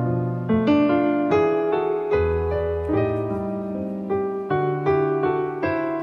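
Piano music playing: a melody of separate struck notes over low held chords, with no voice.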